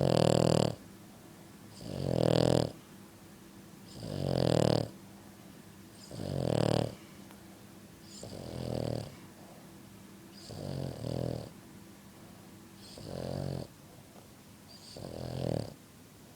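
Dog snoring loudly: eight snores about every two seconds, each under a second long, the last four somewhat quieter than the first.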